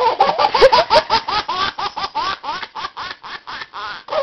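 A baby laughing hard in a fast, even string of short rising "ha" bursts, about five a second, that slowly weaken towards the end.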